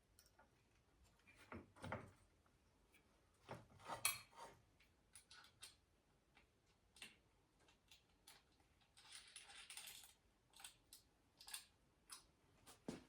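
Metal hardware and hand tools being handled while a chain grinder is fitted to its stand: scattered light clinks and knocks, a couple of heavier thumps about two and four seconds in, and a brief scrape around nine seconds.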